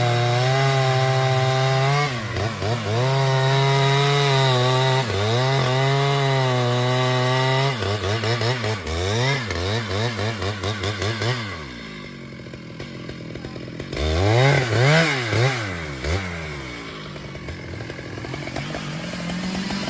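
Chainsaw held at high revs through a cut for about eight seconds, dipping briefly twice. It is then revved up and down repeatedly, drops to idle, gets a few short throttle blips, and settles back to idle.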